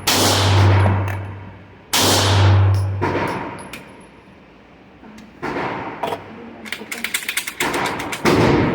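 Two 9mm pistol shots from a Tisas PX9 Gen 3, about two seconds apart, each ringing out with a long echo off the walls of an indoor range. Later comes a quick run of light clicks and rattles.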